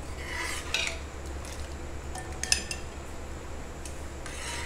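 Stainless-steel ladle stirring dal in a steel kadai, clinking lightly against the pan a few times, over a steady low hum.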